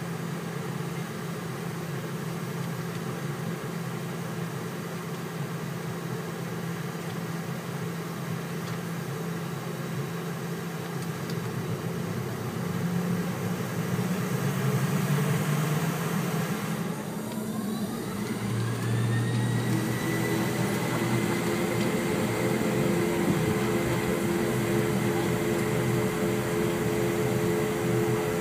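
Airliner jet engines heard from inside the cabin, humming steadily at low power, then spooling up to takeoff thrust. About two-thirds of the way through, a whine rises smoothly in pitch and then holds high, and the noise grows louder as the takeoff roll begins.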